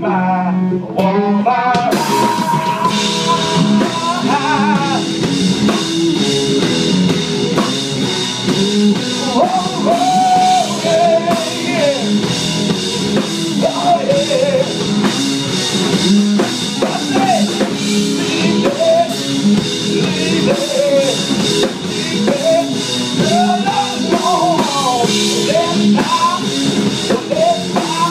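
Live blues-rock trio playing: distorted electric guitar lines with bent notes over electric bass and a drum kit. The full band with cymbals comes in about two seconds in after a thinner opening.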